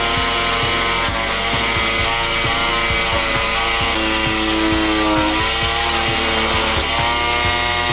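Instrumental background music, a melody over a steady beat, laid over a homemade wooden band saw running and cutting through a thin wooden board.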